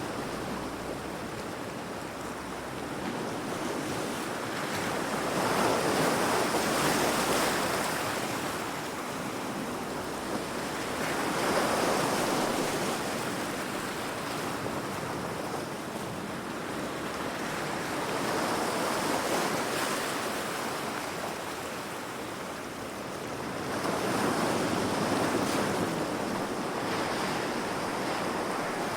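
Heavy ocean waves breaking against rocks: a continuous rushing wash that swells into a crash and recedes, about every six seconds, four times.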